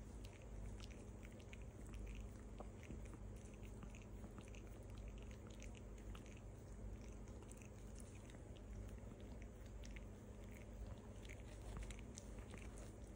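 A Pomeranian licking and mouthing a person's hand: faint, irregular small wet clicks and smacks.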